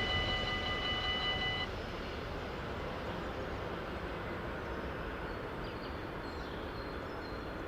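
Dutch level crossing warning bells ringing as the noise of a just-passed train fades, then cutting off suddenly about a second and a half in; the signal stops once the train has cleared the crossing. Steady outdoor background noise follows.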